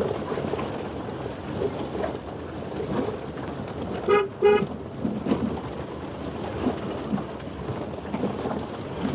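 Two short car-horn toots about four seconds in, over the steady rumble and knocking of a Maruti Alto 800 driving slowly on a rough, unpaved mountain track.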